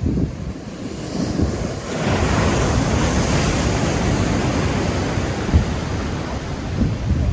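Large ocean waves breaking into surf, a rushing wash that swells about two seconds in and holds, with wind buffeting the microphone.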